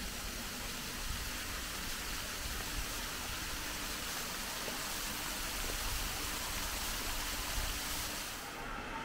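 Steady rushing and splashing of a man-made waterfall spilling down a rock face into a pond, with a faint steady hum from the electric water pumps that feed it. The rushing drops away shortly before the end.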